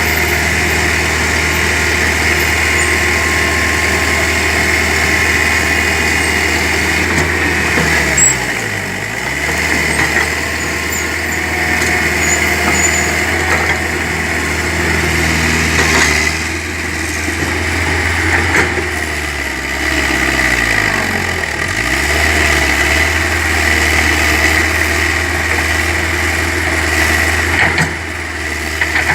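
Excavator engine running steadily, its pitch sagging and recovering twice, about eight seconds in and again about twenty-one seconds in.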